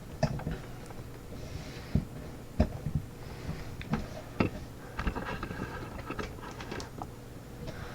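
Scattered light clicks and taps of a lock and lock picks being handled, with a few brief faint metallic rings about five seconds in.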